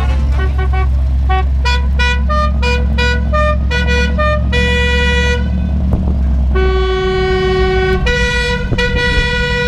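Vehicle horns honking over a running engine's low hum: a quick run of short toots at changing pitches, then longer held blasts in the second half.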